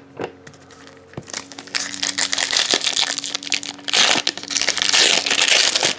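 Foil wrapper of a trading-card pack crinkling and tearing as it is ripped open by hand. It is fairly quiet with a few clicks for about the first second, then crackles continuously, loudest toward the end.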